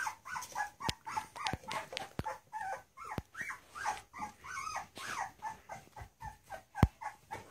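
Young Labrador puppies whimpering and squeaking in short high calls, several a second, with a few sharp knocks, the loudest near the end.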